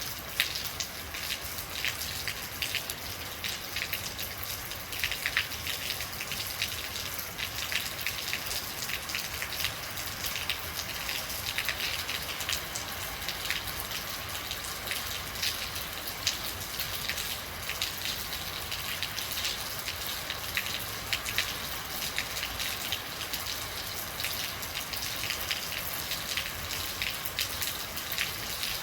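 Real rain falling steadily, a continuous hiss with many close drops ticking and pattering on a hard surface.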